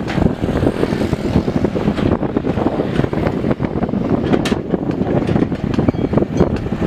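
Mini excavator's diesel engine running steadily under work, with a couple of short sharp knocks about two and four and a half seconds in.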